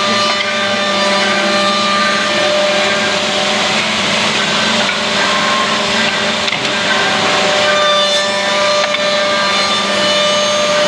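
CNC double-end tenon milling machine running, its cutter heads milling tenons into wooden workpieces: a loud, steady machine whir mixed with continuous wood-cutting noise.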